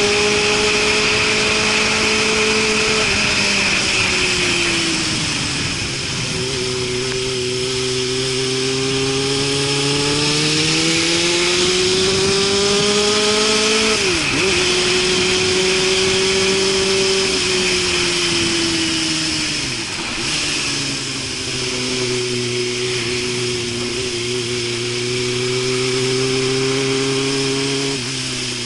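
Suzuki Katana motorcycle's inline-four engine running through a loud Super Combat aftermarket muffler while riding. The revs fall, climb again, drop sharply about halfway through as at a gear change, and settle to a lower steady note near the end, over a constant rush of wind.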